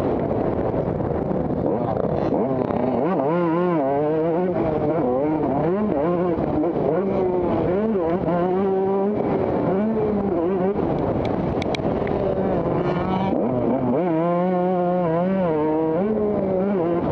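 Motocross motorcycle engines running, their pitch rising and falling as the riders work the throttle. Quick wavering rev passages stand out about three seconds in and again near the end.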